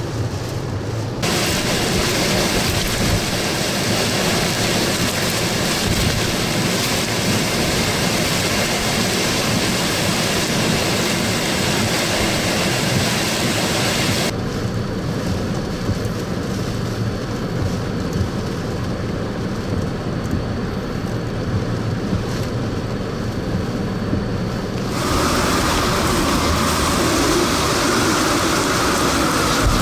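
Hurricane wind and heavy rain blowing hard, with storm-surge waves washing through. The noise changes abruptly about a second in, near the middle and a few seconds before the end.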